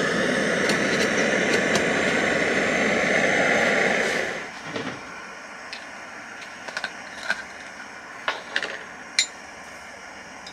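Canister camp stove's gas burner running steadily under its cup pot, then shut off about four seconds in. After that, a few light clinks of a metal cup and lid being handled.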